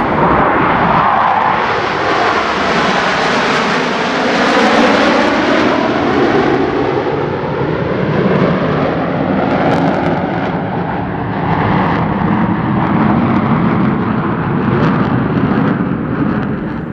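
Jet engines of Blue Angels F/A-18 Super Hornets passing in a loud, continuous roar, the pitch sliding downward as they go by, cutting off abruptly at the end.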